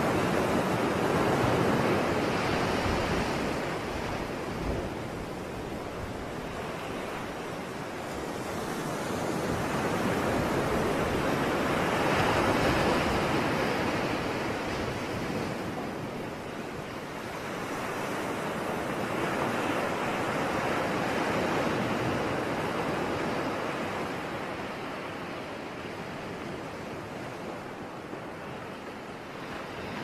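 Ocean surf: waves washing in as a steady rushing noise that swells and fades in three long, slow surges.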